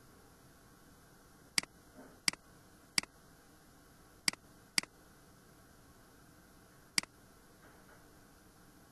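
Computer mouse button clicking six times at irregular intervals, some clicks followed at once by a softer release click, over a faint steady hiss.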